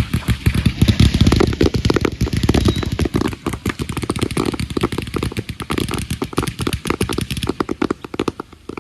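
Fireworks going off in a rapid, continuous string of sharp crackling bangs that thins out near the end.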